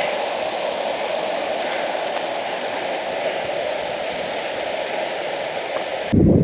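Steady rushing of water in a limestone cave, an even roar from an underground stream or waterfall. Near the end it cuts abruptly to louder, low wind buffeting the microphone.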